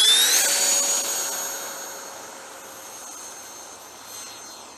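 Electric ducted-fan whine of a Freewing A-4 Skyhawk RC jet at high throttle, climbing away after take-off. The high whine rises in pitch for about half a second, then holds steady and fades over the next couple of seconds as the jet moves off.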